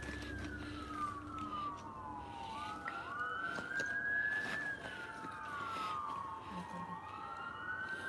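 Emergency vehicle siren wailing. Its pitch climbs over a second or two and then slides down over a couple more, in a slow cycle that repeats about every four and a half seconds.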